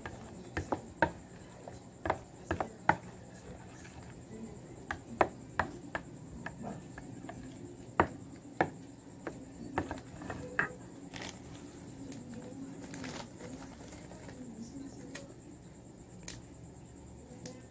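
Spoon knocking and scraping against a plastic mixing bowl as mashed avocado is stirred with condensed milk: irregular clicks, many in the first ten seconds or so, then fewer and fainter.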